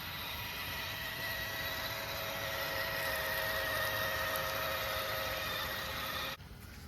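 Electric RC rock crawler's motor and gearbox whining at a steady pitch, cutting off abruptly near the end.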